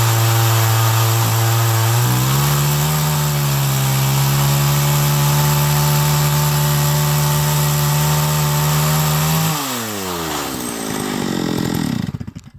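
Two-stroke chainsaw on an Alaskan chainsaw mill, ripping a walnut slab at full throttle under load; its pitch steps up about two seconds in. Near the end the throttle is released and the engine note falls away, then stops.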